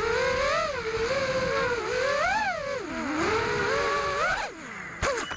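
Brushless motors and propellers of an FPV racing quadcopter (Racerstar 2300kv motors) whining, heard close up from its onboard camera, the pitch rising and falling with the throttle. Near the end the whine drops away sharply as the motors slow, and there is a single sharp knock about five seconds in.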